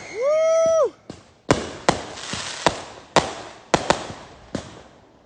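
Consumer aerial fireworks: a loud whistle that rises, holds its pitch and drops away, then about seven sharp bangs over the next three seconds or so, dying down near the end.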